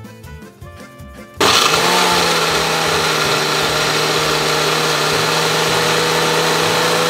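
Oster countertop blender switched on about a second and a half in, its motor quickly spinning up and then running steadily at full speed as it purées nuts with milk and cream cheese into a thick sauce.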